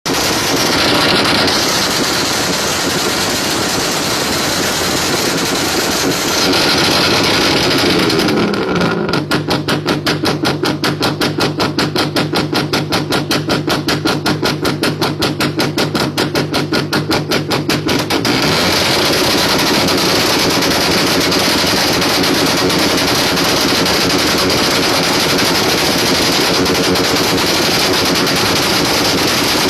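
Loud music played through a large sound system at a sound check, dense and filling. From about nine seconds to about eighteen seconds it breaks into a fast, even stutter of pulses over a steady low tone, then the full sound returns.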